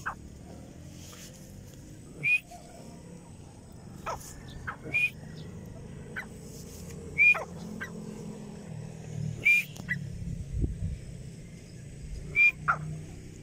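Grey francolin calling: short, sharp, high notes, five of them spaced about two to three seconds apart, with a few fainter lower calls between them. A low rumbling background runs underneath.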